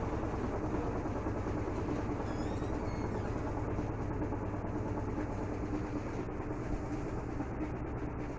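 Electrolux LT12F top-loading washing machine spinning a full load in its intermediate spin cycle, a steady motor-and-drum hum.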